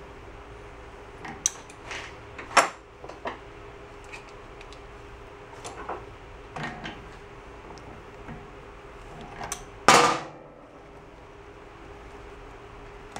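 Pliers and other hand tools clinking and clattering on a steel workbench as they are picked up and set down, in scattered knocks. The loudest is a longer clatter about ten seconds in. A faint steady hum runs underneath.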